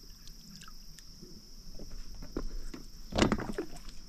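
Steady high insect buzzing, crickets, with scattered small drips and clicks on the water, and a sudden short splash about three seconds in.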